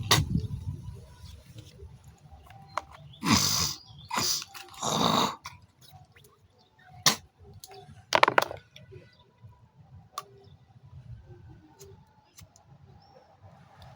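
A smoker hocking phlegm up from her throat and spitting: three harsh, wet bursts in quick succession about three to five seconds in, a short sharp sound about seven seconds in, and another hock about eight seconds in, with quieter stretches between.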